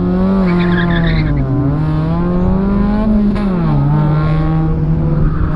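Car engine heard from inside the cabin, its revs rising and falling with the throttle, dipping about a second and a half in and climbing again, then dropping and holding a steady note for the last couple of seconds.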